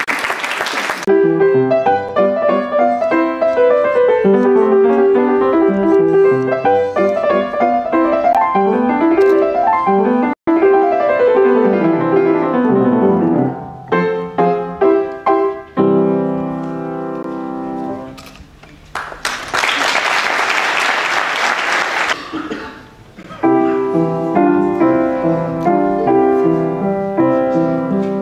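Upright piano played solo: running arpeggios that rise and fall, then chords. A moment of applause opens it, the playing stops about two-thirds through for a few seconds of applause, then the piano starts again with repeated chords.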